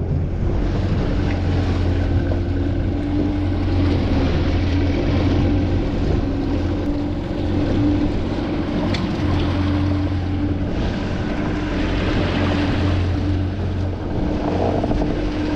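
Yamaha 115 four-stroke outboard motor running steadily, driving the skiff through the water, with an even low hum and a steady tone above it.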